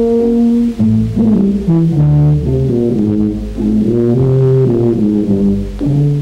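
A tuba playing a tune, one held note after another stepping up and down in pitch.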